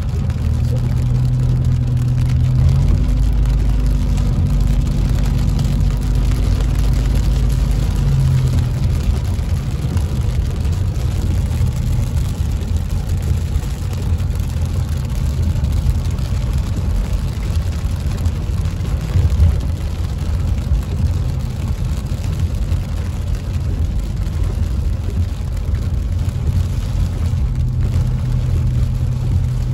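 Car cabin noise while driving on a wet road in rain: a steady engine hum, with tyre and rain hiss over it. The engine note is clearer for the first eight seconds or so, then settles into the general road noise.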